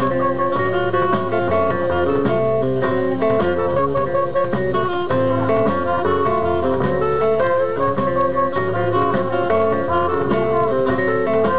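Live band music led by a plucked string instrument playing quick notes over a bass line.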